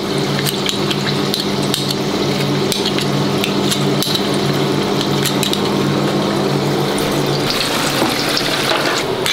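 White bean falafel deep-frying in hot oil in a countertop deep fryer: a steady bubbling sizzle.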